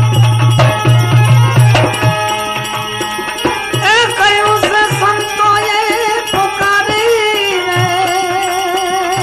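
Bhajan music with no words: deep drum beats and percussion, then a wavering, gliding melody line entering about four seconds in.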